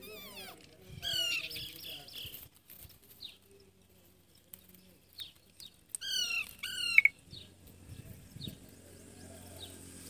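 Indian ringneck parakeets calling: harsh, screeching squawks that glide in pitch, a burst about a second in and a louder pair about six and seven seconds in, with short faint chirps between.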